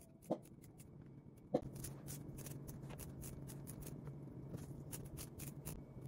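Moringa (malunggay) leaves being stripped off their stems by hand into a bowl: soft rustling with many small crackling snaps, and a couple of sharper taps in the first two seconds.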